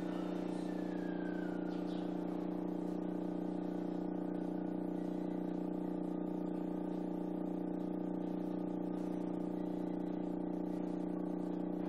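Stepper motor turning at a constant speed under a CNC stepper driver, giving a steady hum at one unchanging pitch.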